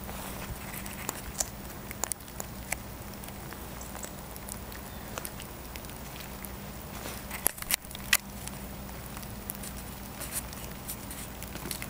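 Footsteps rustling and crunching through dry leaf litter and twigs, with scattered sharp cracks and clicks, the loudest a short cluster a little past the middle.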